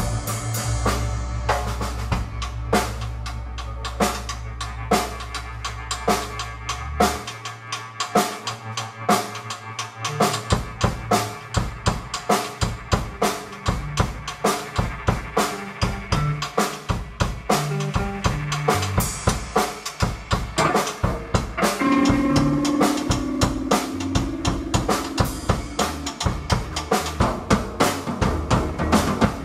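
A rock band jamming on drum kit and electric bass guitar, with a steady beat of kick, snare and cymbal hits. About seven seconds in the low bass drops out for a few seconds, then returns with the drumming as it picks up.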